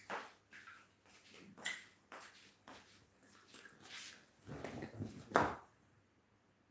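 Handling noise of a person moving up close to the recording phone: irregular small knocks and rustles, with a heavier muffled bump about five seconds in, then it falls quiet.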